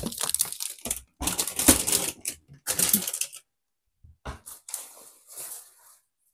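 Shopping bags and packaging rustling and crinkling as groceries are unpacked and a reusable fabric shopping bag is handled and folded. There are loud, irregular rustles for about three seconds, a short pause, then softer rustling.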